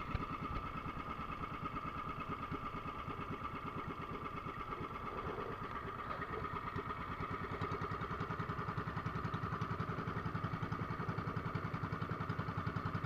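Small engine of a motorized outrigger boat running steadily under way, with a fast, even pulsing that grows slightly louder about halfway through.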